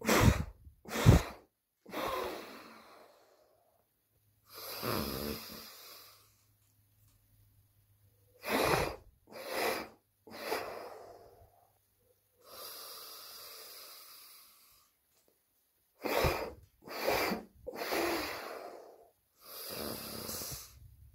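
A man doing a breathing exercise: three short, forceful breaths out through pursed lips, then one longer, quieter breath in. The cycle repeats three times.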